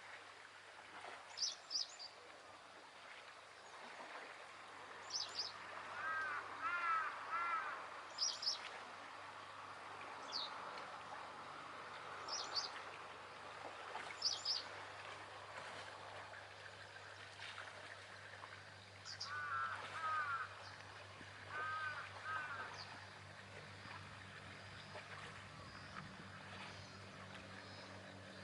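Birds calling at a harbour over a soft wash of water: short high chirps come about every two seconds, with a few lower, harsher calls in short runs about a quarter of the way in and again past two-thirds. A low steady hum sits underneath and grows a little near the end.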